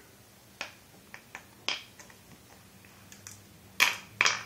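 Flat glass mancala stones clicking as they are dropped one by one into the pits of a wooden board. The clicks come at an uneven pace, and the two loudest fall near the end.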